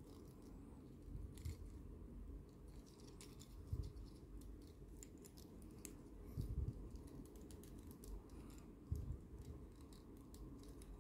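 Small plastic transformable robot toy being handled: its joints and parts click and tick faintly as they are turned and folded, with a few dull handling bumps about 1.5, 4, 6.5 and 9 seconds in.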